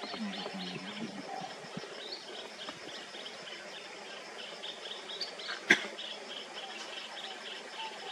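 Insects calling in a steady, rhythmic pulsing chorus from the roadside forest, about three to four pulses a second over a thin continuous buzz. A single sharp click stands out near the six-second mark.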